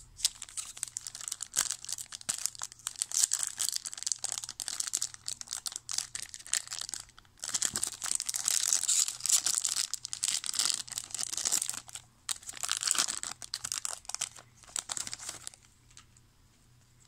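Foil wrapper of a 1996 Donruss football card pack crinkling and tearing as it is opened by hand, in a long run of crackles with a short break about seven seconds in. It dies down about fifteen seconds in as the cards come out.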